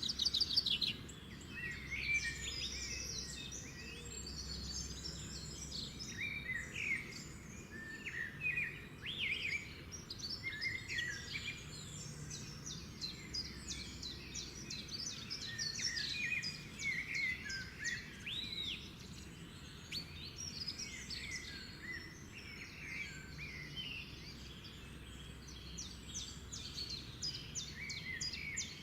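Small birds chirping and twittering continuously: quick overlapping chirps, trills and short rising and falling notes, over a low steady background rumble.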